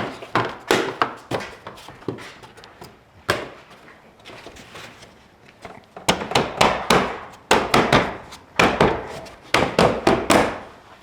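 A series of sharp knocks and clicks from a plastic trim piece being pressed and tapped into its clips on a car's front bumper, coming quicker, about two or three a second, in the second half.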